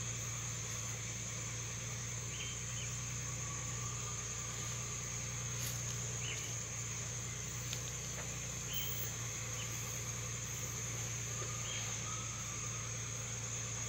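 Steady high-pitched insect drone, with a low steady hum beneath it. Short chirps come now and then, about five in all, and there are a couple of faint clicks.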